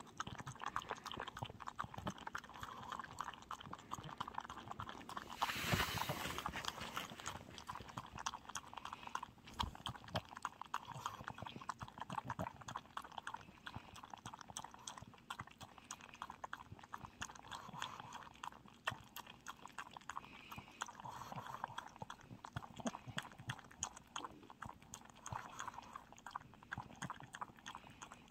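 Small dog eating from a plastic bowl: a fast, steady run of crunching and clicking as it chews and its mouth works against the bowl, with one louder scraping bump about six seconds in.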